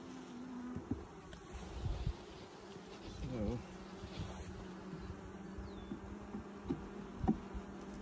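Honey bees buzzing in a steady hum over the open frames of a Langstroth hive.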